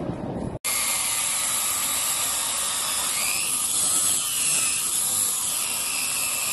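Electric angle grinder cutting through the metal casing of an air compressor, a loud, steady high-pitched grinding with a whine that wavers in pitch. It starts suddenly about half a second in.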